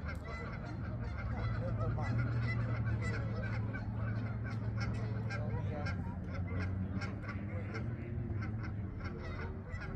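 Geese honking, many short overlapping calls repeating throughout, over a steady low rumble.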